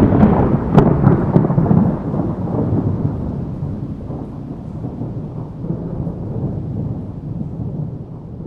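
A close thunderclap: sharp cracks at the start and again about a second in, then a low rolling rumble that slowly fades away.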